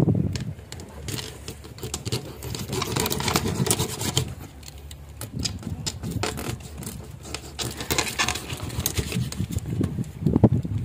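A small knife cutting a fish into steaks on a plastic cutting board: irregular clicks and taps of the blade against bone and board, the sharpest right at the start. A steady low rumble runs underneath.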